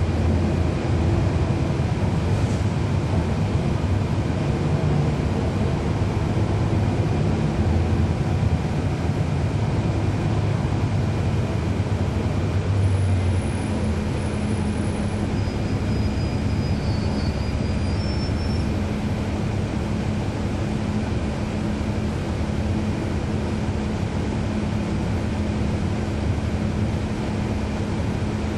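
Cummins ISL9 inline-six diesel of a NABI 40-SFW transit bus heard from on board, running steadily under load, then easing off about halfway through to a slightly quieter, even hum.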